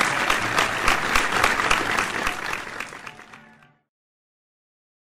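Crowd applause, many hands clapping, that fades away about three seconds in and ends in silence near the end.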